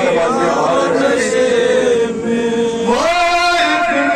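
A man's voice singing a noha, a Shia mourning lament, into a microphone, drawing out long notes and stepping up to a higher held note about three seconds in.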